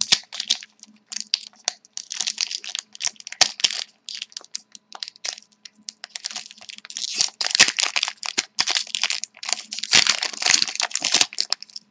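Wrapper of a hockey card pack being torn open and crinkled by hand, in a long run of irregular crackling rustles, with the cards inside being handled.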